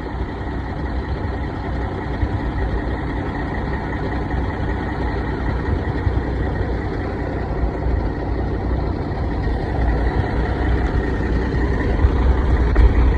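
Truck engine idling: a steady, even low rumble.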